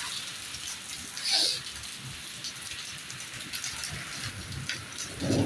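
Heavy rain falling steadily, a hiss full of individual drops striking nearby surfaces. There is a louder splash a little over a second in and a brief low thump right at the end.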